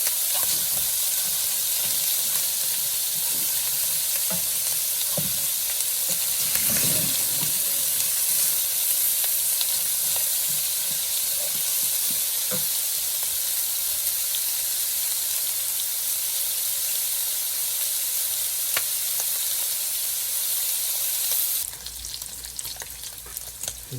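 Pork belly frying in a pan in its own rendered fat: a steady, high sizzle with a few soft knocks, as of stirring, along the way. The sizzle cuts off suddenly near the end.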